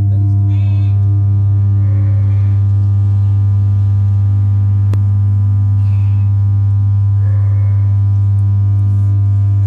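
Steady low-pitched hum with evenly spaced overtones, the tone that sets the water on the artwork vibrating. A few faint short chirps come and go above it.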